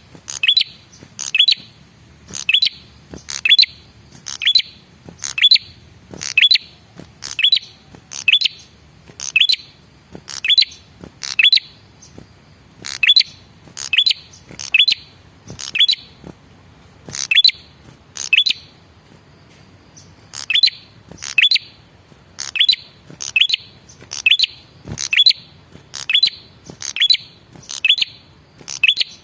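Male prenjak kepala merah calling: short, sharp, high chirps repeated about one to two times a second, often in pairs, with short breaks. It is a lure recording of the male's call, meant to make wild or kept birds answer.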